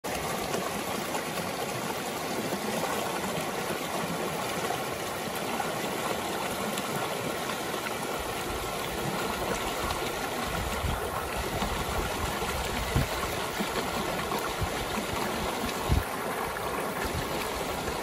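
Shallow mountain stream rushing over rocks in small rapids: a steady wash of water. About halfway through, a low rumble joins it, with two brief knocks near the end.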